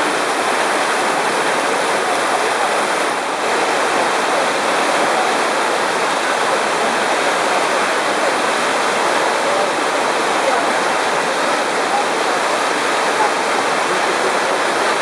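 Water rushing steadily through the Kali River Rapids raft ride's channel, a constant hiss with no breaks.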